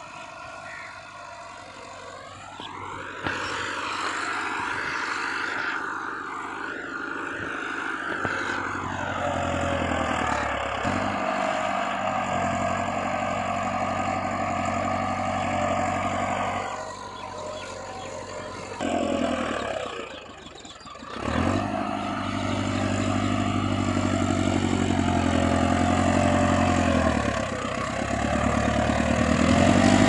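Massey Ferguson 375 tractor's diesel engine running hard under heavy load as it pulls a 13-tine cultivator set at full depth. The engine note rises about three seconds in and drops away briefly twice in the second half.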